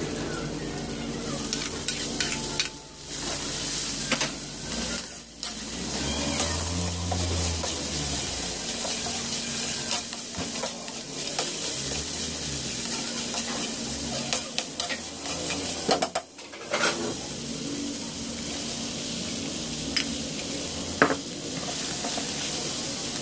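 Onions, garlic and meat sizzling in hot oil in an aluminium wok, with a metal spatula scraping and clinking against the pan as the food is stirred. The sizzle dips briefly a few times.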